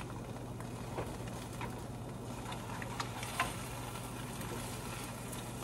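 Two eggs sizzling softly in a frying pan, with a few light clicks of a spatula against the pan, over a steady low hum.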